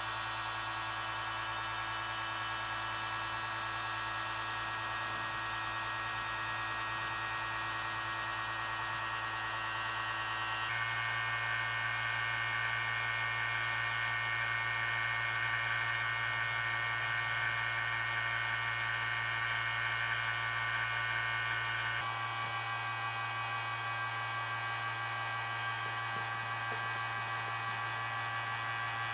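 Steady humming drone of the metal-melting furnace running, its tone changing abruptly twice.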